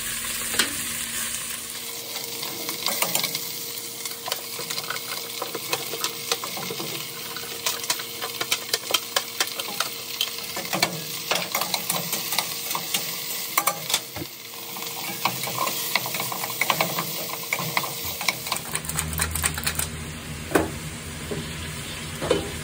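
Wagyu beef cheek and tendon frying in a stainless steel saucepan, sizzling steadily, while metal tongs and then a wooden spatula stir the meat with carrots and onions, with frequent clicks and knocks against the pan. A low rumble comes in near the end.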